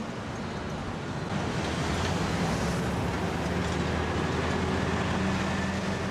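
Steady engine drone, a low hum under a rushing noise, growing a little louder about a second and a half in and then holding.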